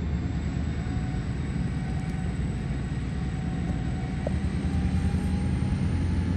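Diesel locomotive engine running as the locomotive moves slowly toward the crossing. A steady low rumble that grows a little louder in the second half.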